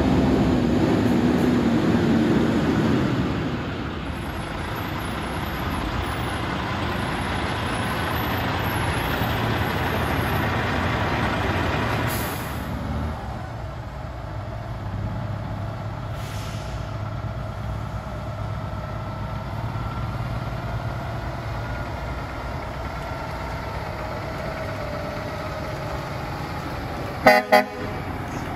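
Loaded log trucks driving past, their diesel engines and tyres running steadily, loudest over the first few seconds. Near the end a truck's horn gives two short toots.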